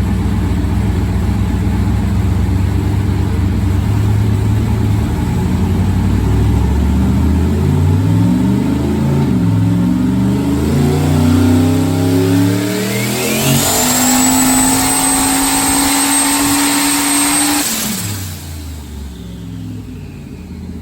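Turbocharged LS V8 in a Holden Commodore on a dyno making a wide-open-throttle power pull: it runs steadily at first, then from about 7 s the revs climb steadily while a high whine rises with them, levels off near the top for a few seconds, and at about 18 s the throttle closes and the revs fall away.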